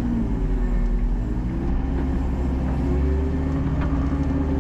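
An engine runs steadily with a low hum. Its pitch wavers slightly, and the rumble gets heavier about three seconds in.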